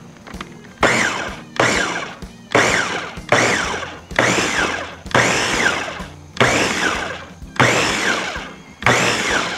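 Electric food processor with a top-mounted motor pulse-chopping smoked tomatoes, onion, jalapeños and cilantro into salsa. About nine short pulses, roughly one a second, each starting sharply and dying away before the next press.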